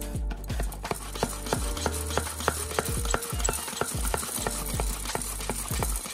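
Coffee canister being handled and its lid twisted, a rubbing, scraping sound, over background music with a steady beat.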